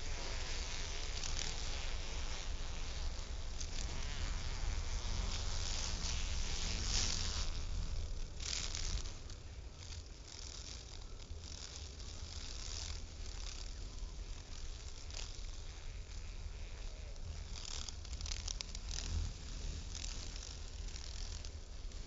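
Cicada killer wasps buzzing in flight, the buzz swelling and fading again and again as they pass, louder in the first eight seconds, over a steady low rumble.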